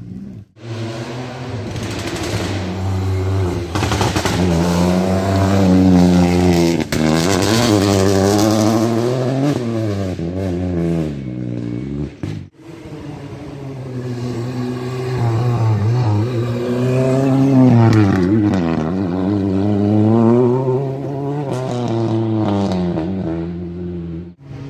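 Rally cars passing at speed on a loose dirt stage, engines revving hard, the pitch climbing and dropping again and again through gear changes and lifts. The sound cuts off abruptly about halfway through, and a second run of hard revving follows.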